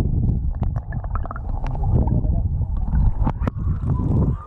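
Muffled rumbling and gurgling of river water heard through a submerged action camera, with a few sharp clicks as the water and the hand knock against the housing. Near the end the camera comes up out of the water and the sound thins to a lighter hiss of water spilling.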